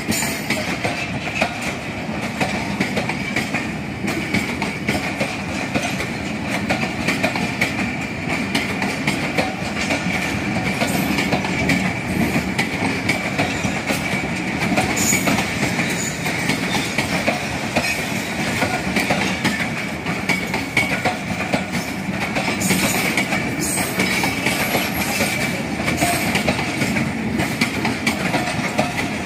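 Pakistan Railways passenger coaches of the Rehman Baba Express rolling past as the train departs, a continuous rumble with wheels clattering over rail joints and a steady high-pitched whine above it.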